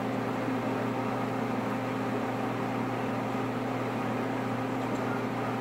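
Steady low electrical hum with a faint hiss, from a running household appliance, unchanging throughout.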